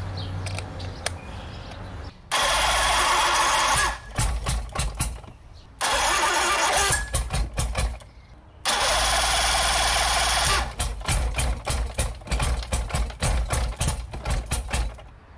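Vintage two-stroke Evinrude outboard motor cranked on its electric starter three times, firing raggedly and sputtering after each crank, longest after the third, but never settling into running. It catches but won't keep running: something is still wrong with the freshly rebuilt fuel and ignition setup.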